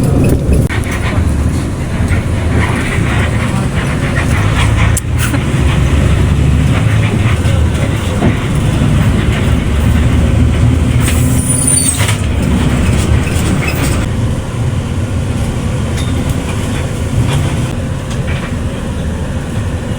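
A running vehicle: a steady, loud low rumble, with a few sharp clicks.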